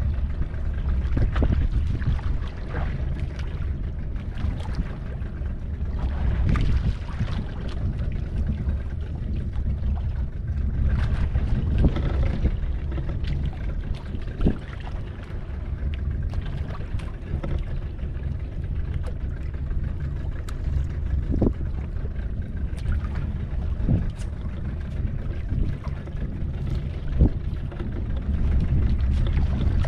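Fishing boat's engine running steadily as a low hum, with a few sharp knocks scattered through it.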